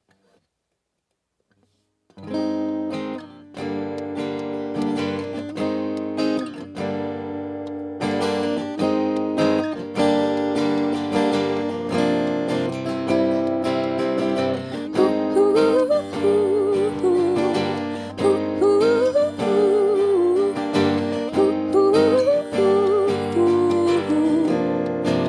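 Acoustic guitar intro starting about two seconds in after a brief silence, played as a steady chord pattern. From about midway a woman's wordless vocal runs glide over the chords.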